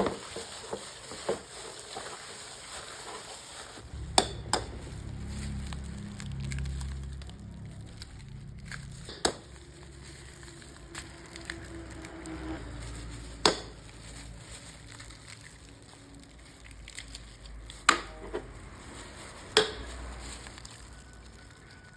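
About a dozen sharp knocks and clicks at irregular intervals. A low rumble comes in about four seconds in and fades after a few seconds.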